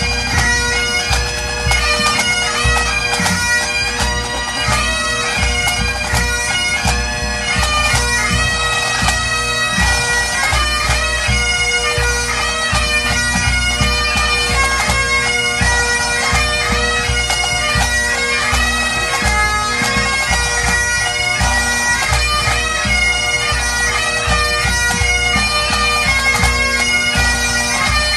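Pipe band playing: Great Highland bagpipes sound a melody over their steady drones, with the band's drums beating along underneath.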